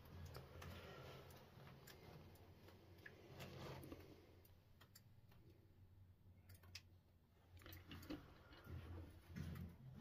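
Faint footsteps scuffing and crunching on a gritty tunnel floor, a scatter of small clicks, over a low rumble that fades out in the middle and returns near the end.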